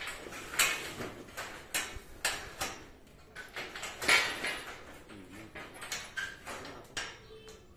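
Irregular metallic clanks and knocks of steel tent-frame pipes being handled and fitted together, loudest about half a second in and again about four seconds in.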